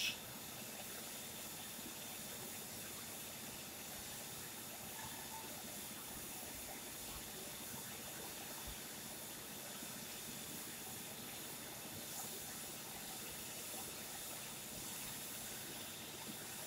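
Faint, steady hiss with no change or separate events.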